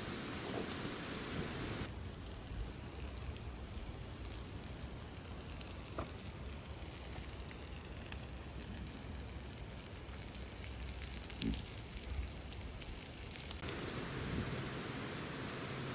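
Steady crackling hiss of a small wood-burning camp stove and the frying pan on it. The sound changes abruptly about two seconds in and again near the end, as the shot changes.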